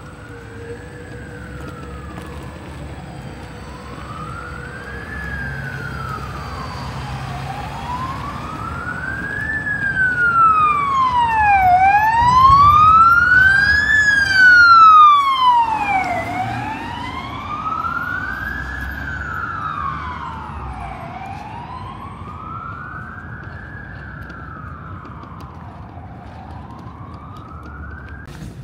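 Emergency vehicle siren wailing, its pitch rising and falling slowly about every four and a half seconds. It grows louder to a peak about halfway through, then fades as it passes.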